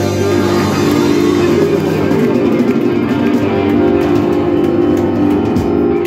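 Live blues-rock band with electric guitars and bass holding a long sustained chord at the end of the song, ringing steady and cutting off just at the end.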